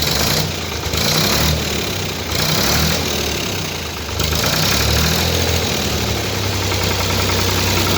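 Ford 4000 tractor engine running, its speed rising and falling over the first few seconds, then settling to a steady idle.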